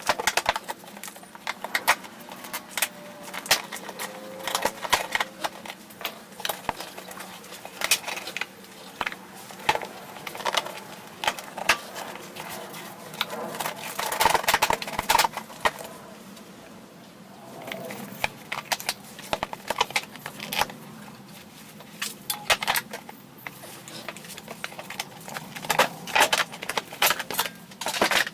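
Stiff plastic wheel-arch cover being worked loose and pulled out by hand: a long run of irregular clicks, knocks and rustling plastic.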